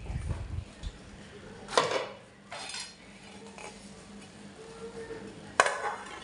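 Aluminium cooking pot and lid clanking: a few metal knocks and clinks, the loudest near the end as the lid is set on the pot to close it for steaming the rice on dum.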